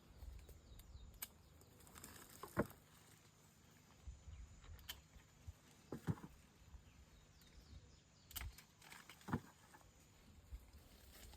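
Faint scattered knocks and clicks, with three louder ones a few seconds apart.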